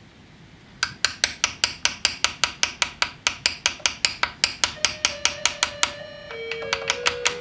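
A hand engraver's graver being driven into the steel of a gun barrel. The sharp metallic taps come in a quick, even rhythm of about six a second and start about a second in.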